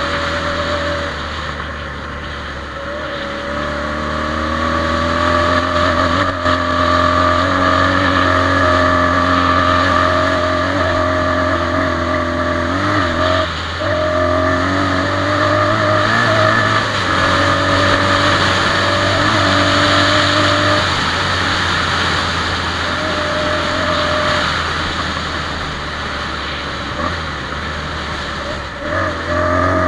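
Quad bike engine running as it is ridden along a dirt track, its pitch rising and falling with the throttle.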